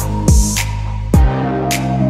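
Background electronic music with a steady beat: deep bass-drum hits that drop in pitch, sharp snare-like hits and sustained chords.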